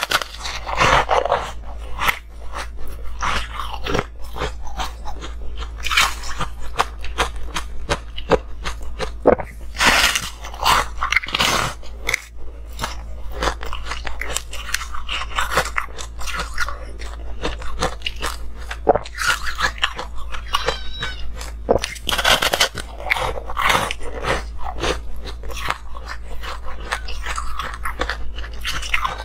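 Close-miked crunching of a block of coloured ice being bitten and chewed: a dense run of sharp cracks and snaps, with several louder bites standing out.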